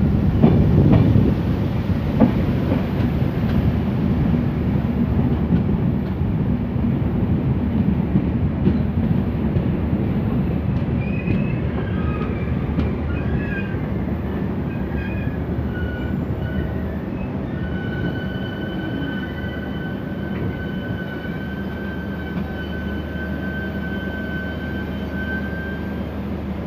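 Passenger train rumbling along the rails, with a few knocks in the first seconds, the rumble slowly easing as it slows. About halfway through a high squeal sets in and becomes steady and held for several seconds as the train brakes.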